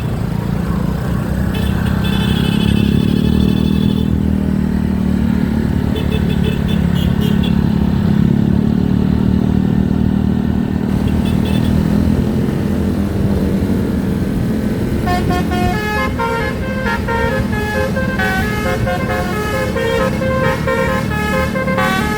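A bus engine running with a steady low drone, with a few short high toots in the first half. About two-thirds of the way in, a multi-tone basuri telolet horn starts playing a melody of short stepping notes.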